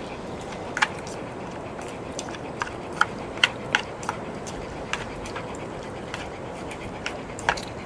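Chopsticks and tableware clicking and tapping lightly against bowls and plates, a few scattered clicks over several seconds, over a steady background hiss.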